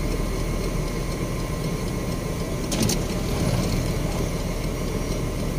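Truck engine running steadily at low speed, a low even hum, with a brief click about three seconds in.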